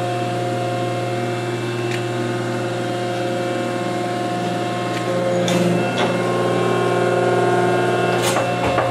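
The hydraulic power unit of a Rockford hydraulic machine tool, an electric motor driving a hydraulic pump, running with a steady hum and whine. About five seconds in the tone shifts and gets a little louder, with a few knocks near five and a half, six and eight seconds.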